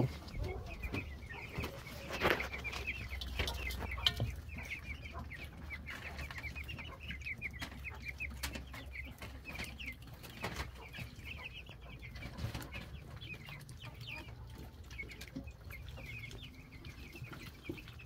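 A mixed flock of young meat chickens and three-week-old ducklings peeping and clucking continuously in many short, high calls, with a slightly louder call about two seconds in.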